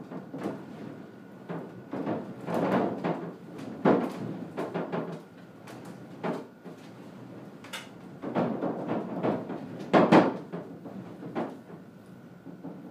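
The timber roof of a log cabin knocking and rattling in the wind, heard from inside: irregular bursts of wooden clatter and bangs, loudest about a third of the way in and again near the three-quarter mark. The sides of the roof are not secured down and are lifting in the gusts.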